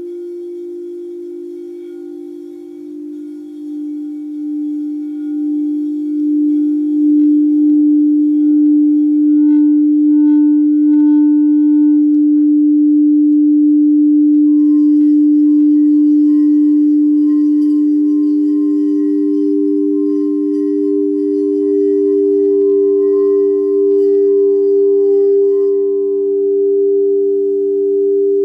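Frosted crystal singing bowls ringing in long sustained tones that swell and waver slowly. A low bowl tone is joined about halfway through by a second, slightly higher bowl, and the two ring together.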